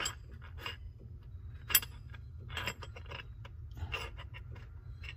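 Scattered light clicks and clinks of small steel cape chisels being handled in a red plastic holder, the sharpest click a little under two seconds in, over a steady low hum.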